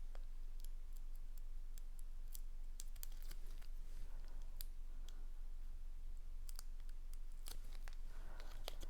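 Scattered light clicks and taps of paper pieces and craft tools being handled on a work surface, over a steady low hum.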